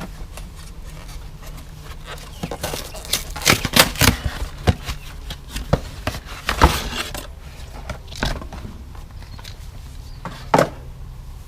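Hands opening the packaging of a new recoil pull-start assembly and handling the part. Irregular rustling and crackling with sharp knocks come in a cluster a few seconds in, again around the middle, and once more near the end.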